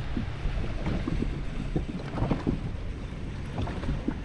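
Wind buffeting the microphone over choppy lake water, with small waves slapping against a boat hull.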